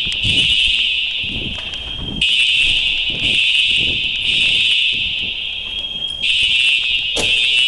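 Building fire alarm sounding: a loud, high-pitched alarm tone that swells in a cycle repeating about every four seconds, with a sharp knock near the end.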